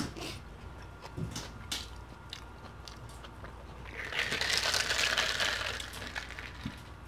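Small mouth clicks and table handling noises. Then, about four seconds in, a louder rustling swish lasting about two seconds as a plastic water bottle of iced tea is grabbed and lifted.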